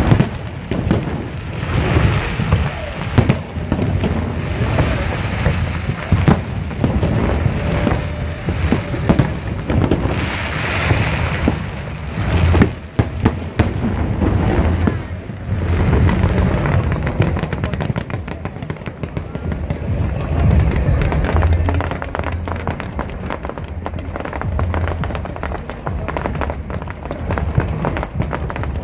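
Fireworks display going off continuously: repeated bangs with crackling in between, a run of sharper, louder cracks about halfway through, then denser crackling.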